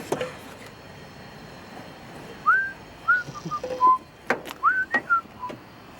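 A person whistling a few short notes that slide up in pitch, with a few sharp knocks of tools or metal in between.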